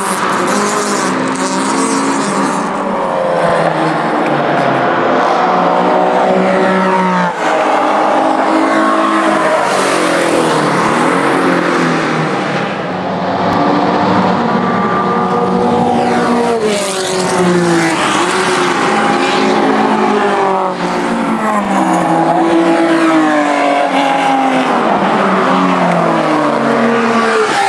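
Several classic racing cars accelerating hard past, engines running at high revs. Their pitch climbs through the gears and drops back at each upshift, with one car's note overlapping the next.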